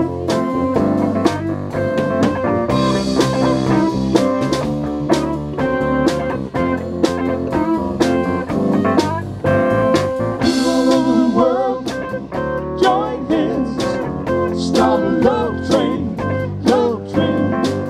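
Live band playing an instrumental break on electric guitar, bass, drum kit and keyboard, with a steady drum beat. A cymbal crash comes about three seconds in and again about ten seconds in. The second half carries bending lead lines, likely the electric guitar.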